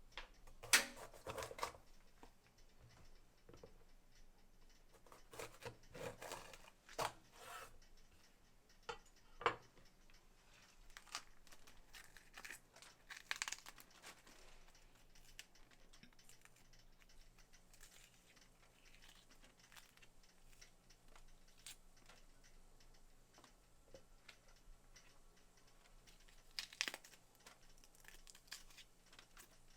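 Kitchen food-prep handling: scattered knocks, clicks and rustling, like packaging or food being torn and handled. It is busiest in the first ten seconds, then mostly quiet until a brief clatter near the end, over a faint low hum.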